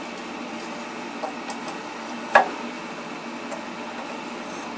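Light metallic ticks, then one sharper clink a little over two seconds in, as long metal rods (the thermostat rod and the heating-element rods) are slid up into the flange at the bottom of an electric water heater, over a steady background hiss.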